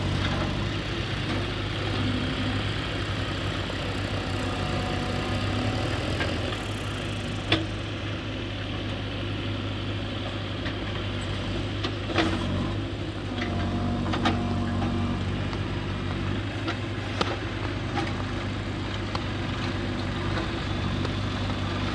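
JCB 3DX backhoe loader's diesel engine running steadily as it digs, its note shifting a couple of times under load, with a tractor's diesel running nearby. Three sharp knocks stand out, about five seconds apart.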